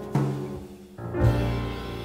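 Instrumental background music: held notes, with a sharp hit just after the start and a deep, loud hit a little over a second in.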